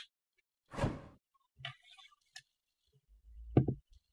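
Objects handled on a tabletop: a short scrape about a second in, a faint tap, and a knock near the end as a tool is set down.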